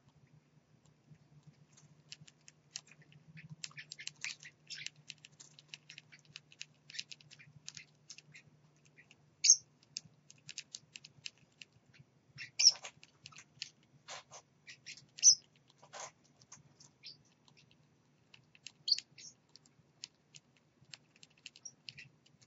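Small caged parrots pecking and cracking seed, a scatter of light clicks, with a few short, sharp chirps standing out. A faint steady low hum runs underneath.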